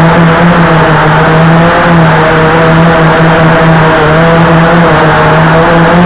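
Blade 350QX2 quadcopter's four electric motors and propellers in flight, heard from the camera mounted on the airframe: a loud, steady buzzing drone whose pitch wavers slightly as the motors adjust thrust.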